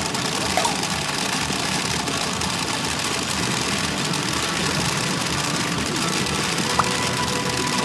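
Steady, dense din of a pachinko parlour: many machines running and steel balls rattling, with a couple of brief clicks.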